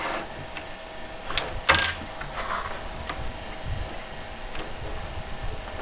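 Handling of an opened plastic rechargeable torch as its charging pins are pushed into a mains socket: a click, then a short sharp clatter just under two seconds in, and a few faint ticks.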